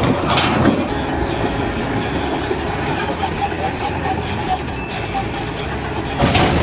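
Steady mechanical noise, like heavy machinery running, with faint irregular clicks.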